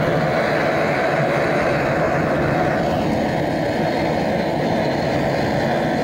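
Butane gas torch firing a loud, steady hissing flame into split firewood to light it.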